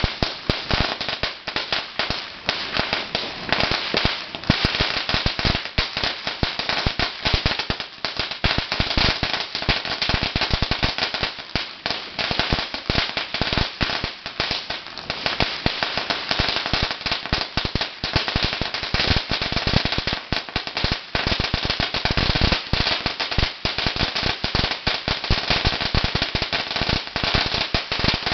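A long string of red paperless firecrackers going off, with a continuous rapid crackle of sharp bangs that never pauses.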